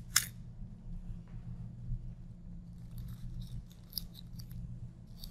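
Tape being peeled off a sheet of paper, with a sharp click just after the start and then a run of dry crackling about three seconds in.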